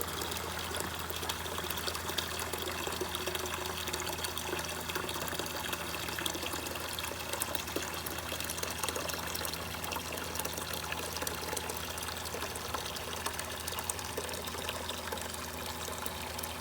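Water rushing and splashing out of a hose fed by a running water pump, steady throughout, with the pump's low hum under the sound of the water.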